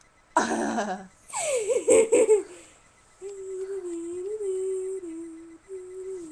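A girl's silly vocal noises: a short loud squeal, then a sliding squeal that falls in pitch with giggling, followed from about three seconds in by long humming on a few held notes that step up and down.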